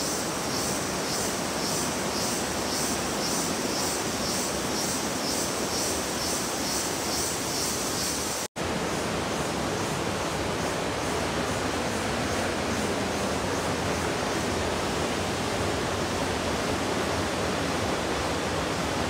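Steady roar of a waterfall's rushing water. A high, pulsing insect chirr sounds over it until about halfway through.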